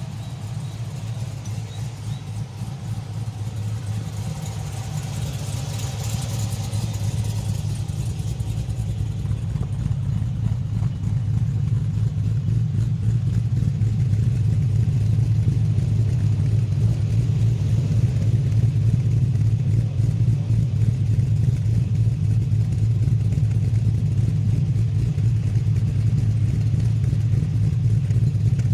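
Exhaust of a Holden VF Commodore's 6.2-litre LS3 V8 running at a steady engine speed with a deep, even note. It grows louder over the first dozen seconds or so, then holds.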